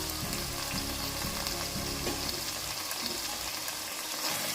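Chicken pieces dry-roasting in a pan, sizzling steadily in coconut oil with curry leaves added.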